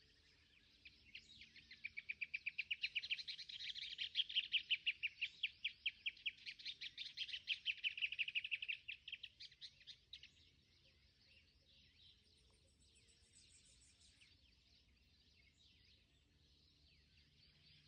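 A bird calling in a long, rapid run of repeated high chirps, several a second, that swells and then stops about ten seconds in, followed by faint scattered calls.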